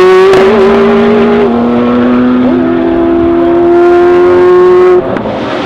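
A Ferrari F40 and a Porsche 911 GT1 race car accelerating hard away together, both engines loud and climbing in pitch, with gear changes dropping the pitch about a third of a second and two and a half seconds in. The sound cuts off abruptly about five seconds in, and a quieter engine sound takes over.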